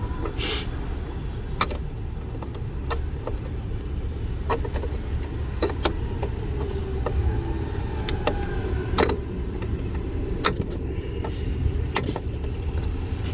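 Scattered light clicks and taps from hands turning and working a plastic turn-signal bulb socket and its retaining ring, over a steady low rumble.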